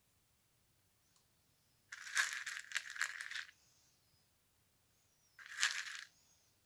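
Slime being pressed and squished by hand, giving two spells of dense crackling: the first starts about two seconds in and lasts about a second and a half, the second is shorter, near the end.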